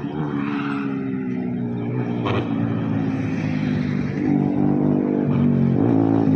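Yamaha R25's parallel-twin engine running through an aftermarket full-system exhaust as the bike rides toward the listener, its steady note getting louder near the end.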